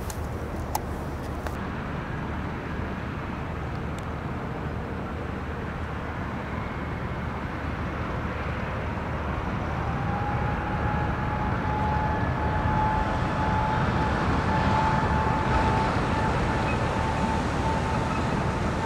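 Airbus A380's jet engines running with a steady rumble. About halfway through a whine rises slightly in pitch, then holds, as the sound grows louder.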